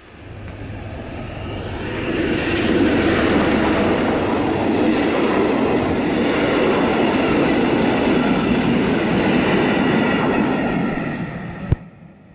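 SM42 diesel shunting locomotive and its train of maintenance wagons passing close by: a low engine drone as it comes in, then steady wheel and rail noise from the wagons. It builds over about two seconds and fades near the end, with a single sharp click just before it dies away.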